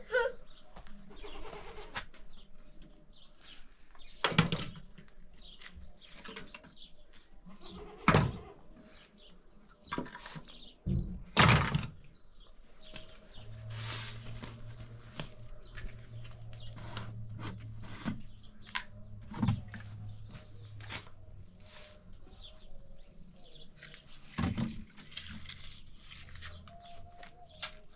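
Goats bleating now and then amid scattered knocks and clatter. A low steady hum runs through the middle stretch.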